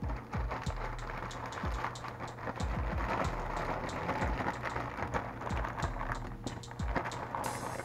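Chicken sizzling steadily in a cast-iron skillet, with the crackle and rustle of a plastic salad bag as lettuce is shaken out of it into a bowl, over a low steady hum.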